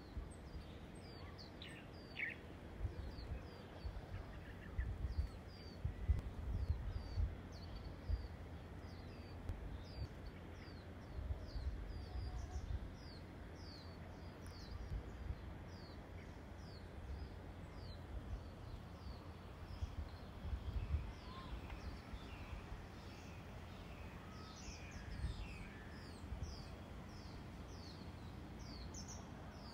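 Wind buffeting the microphone in uneven low gusts, with a small bird chirping over and over in short, high, falling notes.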